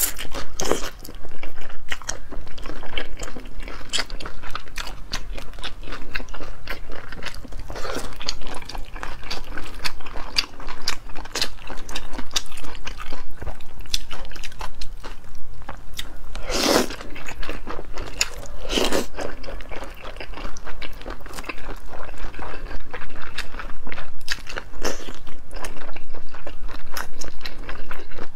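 Close-up mouth sounds of eating wide flat noodles in sauce with shredded cucumber: wet slurping, chewing and light crunching, with many small clicks. Two longer, louder slurps come a little past the middle.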